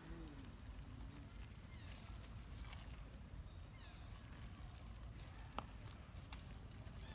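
Faint outdoor ambience with a steady low rumble and a few faint high chirping calls that glide in pitch. A single sharp click comes about five and a half seconds in.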